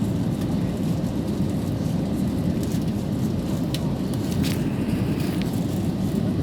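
Steady low rumble of cabin noise inside an Airbus A320neo airliner, with a few faint ticks.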